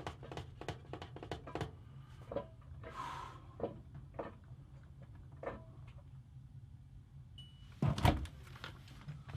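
LG washing machine running: a steady low hum with scattered light knocks, and a louder thump about eight seconds in.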